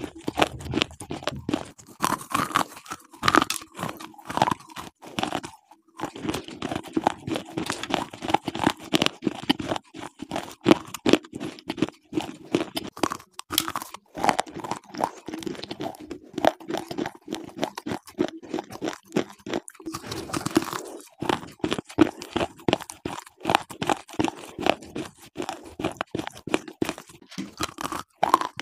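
Slate pencils being bitten and chewed: a dense run of sharp, crisp crunches in quick succession, with two brief pauses.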